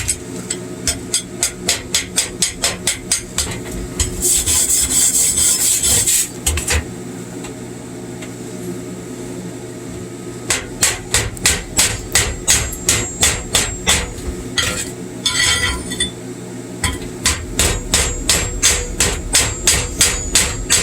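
Chipping hammer knocking slag off a 7018 arc weld, in runs of quick strikes about four a second. The runs are broken twice by a couple of seconds of scratchy scraping across the metal.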